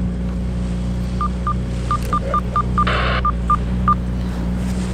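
Key beeps from a handheld VHF radio as its buttons are pressed: about ten short beeps at one pitch, with a brief burst of hiss about three seconds in. Under them the boat's inboard diesel engine runs with a steady hum.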